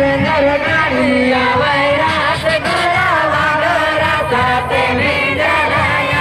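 Voices singing a Jhumar folk song together, a wavering sung melody.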